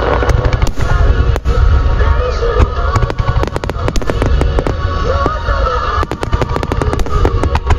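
Dense, rapid barrage of aerial fireworks shells bursting, many booms and cracks overlapping with no gaps, as in a starmine finale; music plays underneath.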